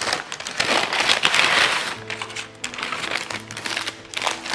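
Paper food packaging rustling and crinkling as it is handled, then background music with steady sustained notes and a bass line comes in about halfway through.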